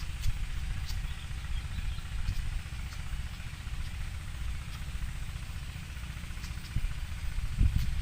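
Low, uneven rumble of wind buffeting the microphone, swelling in a stronger gust near the end, with a few faint short high clicks now and then.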